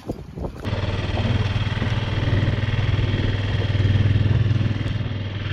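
Wind and water noise for a moment, then, from just under a second in, a small outboard motor on an inflatable dinghy running steadily under way, a low even drone.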